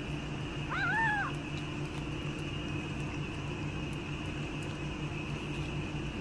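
A cat meows once, a short call that rises and falls about a second in, over a steady background hum.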